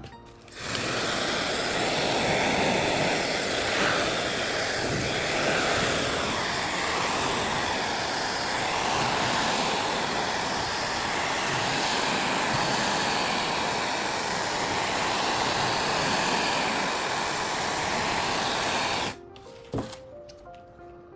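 Loud, steady rushing noise of blowing air, starting suddenly and cutting off near the end, with background music faintly under it.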